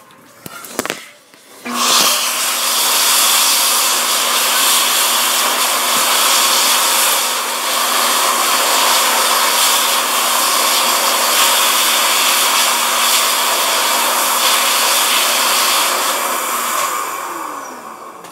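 Electric hand dryer running with a steady hum, starting suddenly about two seconds in and winding down near the end.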